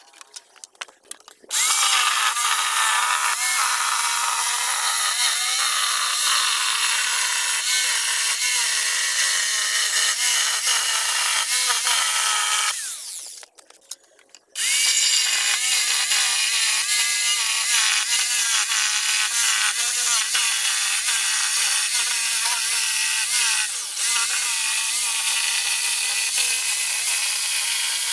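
Electric power tool running on wood in two long runs with a break of about a second and a half between them, after a few light clicks; its pitch wavers as the tool meets the wood.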